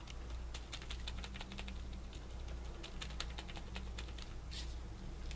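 Light, irregular tapping and clicking of a paint-loaded sponge dabbing through a stencil onto a paper art page, with the stencil sheet shifting slightly under the fingers.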